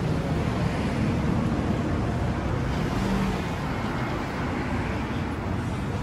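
Steady city street noise of traffic, a continuous low rumble with no distinct events.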